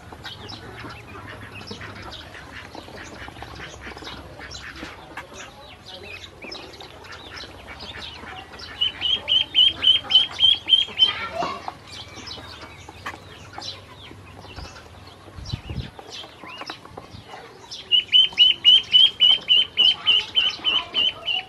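Ducklings peeping, a steady scatter of short high chirps. Twice, about nine and eighteen seconds in, there is a loud run of quick, evenly pitched peeps lasting two to three seconds.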